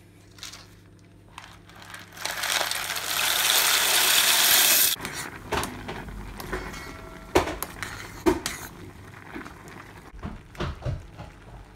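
Penne boiling in a stainless steel saucepan. A loud rushing hiss builds for a few seconds and cuts off suddenly. Then a metal spoon stirs the pasta and clinks sharply against the pot several times.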